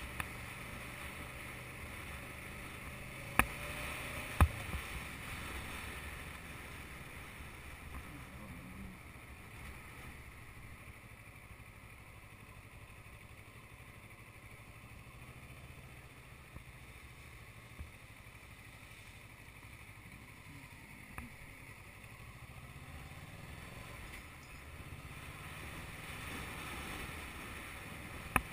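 Motorbike engine running at low parking-lot speed under a steady rush of wind and road noise, with two sharp knocks about three and a half and four and a half seconds in. Near the end the engine pitch rises as the bike speeds up onto the road.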